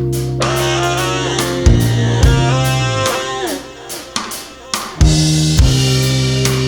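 Rock backing music: sustained bass and guitar notes with drum hits, a bending guitar line that drops away about three seconds in, and the full band coming back in near the end.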